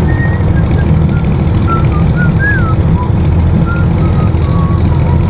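Loud, steady low rumble of wind and road noise from travelling along a road. Short high chirps and whistles slide up and down over it every second or so.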